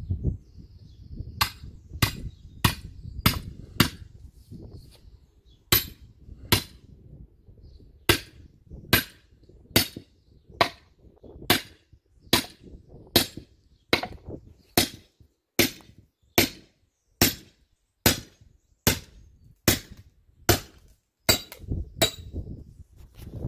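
Sledgehammer striking a steel wedge set in a freshly cut spalted beech log, to split it: about two dozen ringing metal-on-metal blows. The first few seconds hold quicker, lighter taps, then steady full swings land a little under a second apart.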